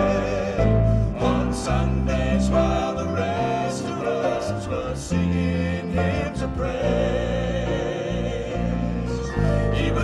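Southern gospel male vocal quartet singing in harmony with band accompaniment.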